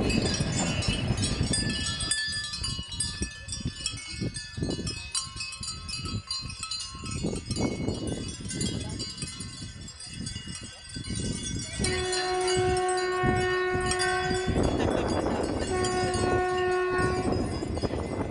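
A passing train's rumble fades in the first couple of seconds. Bells then jingle and clink irregularly. Near the end a train horn sounds two long, steady blasts with a short break between them.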